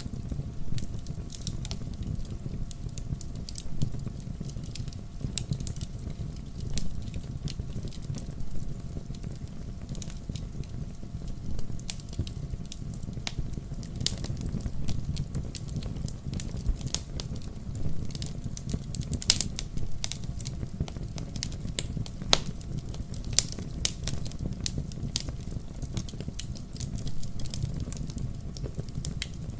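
Wood fire burning in a fireplace: a steady low rumble of flames with irregular crackles and sharp pops of burning logs.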